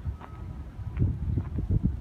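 Wind buffeting the microphone: an irregular low rumble.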